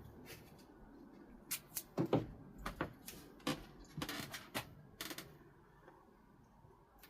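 Blue masking tape being pulled off its roll, torn and pressed on: a string of short, sharp crackles and clicks from about a second and a half in to about five seconds in.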